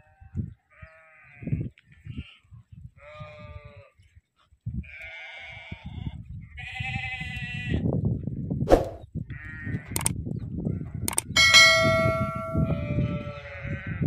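A flock of dumba (fat-tailed) sheep bleating, one call after another about every second or two, with a low rumble underneath in the second half. A few sharp clicks and a short metallic ding come about eleven seconds in.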